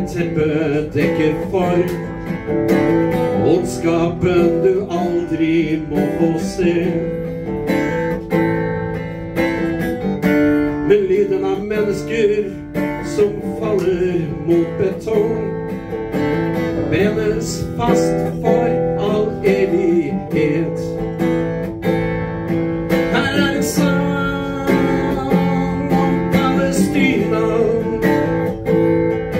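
Acoustic guitar strummed steadily, playing chord accompaniment to a song without a break.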